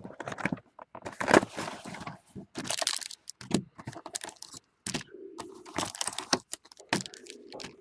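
Cardboard trading-card box and foil card packs being handled: an irregular run of scrapes, taps and crinkles as the box is opened and the packs are moved, with a longer rubbing sound from about five seconds in.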